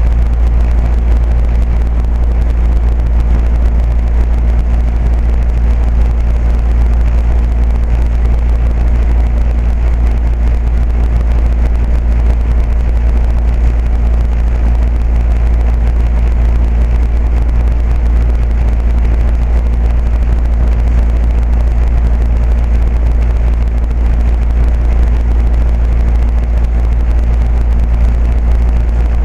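2008 Carrier 2.5-ton straight-cool air-conditioner condensing unit running steadily: the Copeland scroll compressor's hum and the condenser fan's whoosh, with no change in pitch or level.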